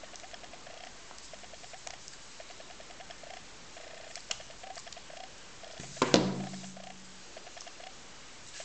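A Samsung smartphone set down on a wooden table with one hard knock about six seconds in, after a lighter click a little earlier. A faint, irregular pattering of short pulses runs underneath.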